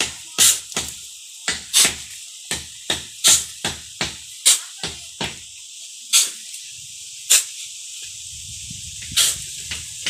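Shovels scooping into a gravel pile: a run of short, sharp crunching scrapes, about one or two a second, spacing out after about five seconds. A low rumble comes in near the end.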